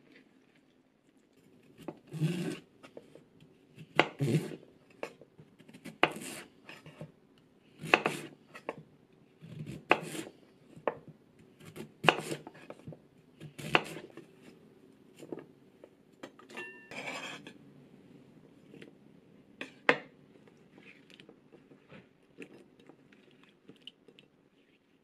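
Large kitchen knife cutting a sweet potato into chunks on a wooden cutting board: a sharp knock on the board about every two seconds, about seven times, with softer scraping between. Near the end, a few quieter knocks and rustles as the pieces are handled in a glass bowl of water.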